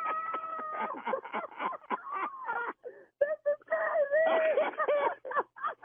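Voices over a telephone line, with drawn-out wailing and groaning exclamations and overlapping talk that can't be made out. It is a reaction to being told the call was a prank.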